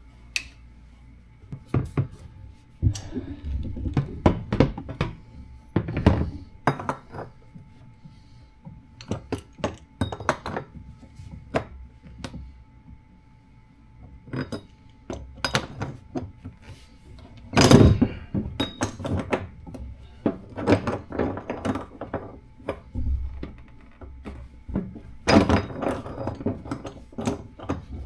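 Irregular metal clunks, knocks and clinks of hand work with tools and steel parts inside a skid steer's frame, with one heavier knock past the middle.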